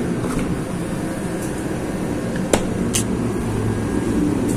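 Steady hum of cooling fans, with a sharp click about halfway through and a brief hiss just after.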